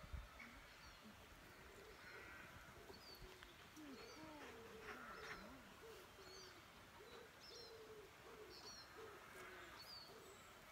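Faint outdoor quiet with distant birds: scattered short high chirps from small birds, and a series of low wavering cooing calls through the middle.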